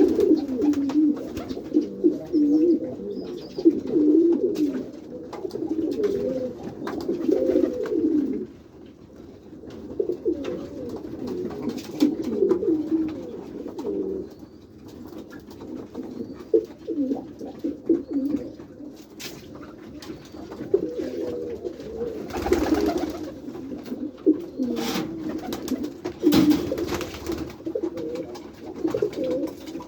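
Many domestic pigeons cooing together in an enclosed loft, a continuous overlapping chorus of low cooing calls, busiest in the first eight seconds. A few sharp knocks or rattles, the loudest about two-thirds of the way through.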